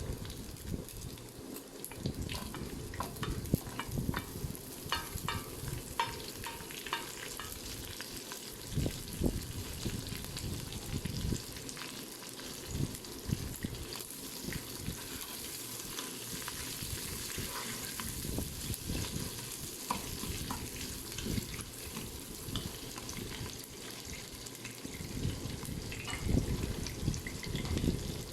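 Onions sizzling in hot oil with anchovies in the inner pot of a Noxxa electric pressure cooker on its stir-fry setting. The pot is stirred, with scattered clicks and scrapes that get busier and louder near the end.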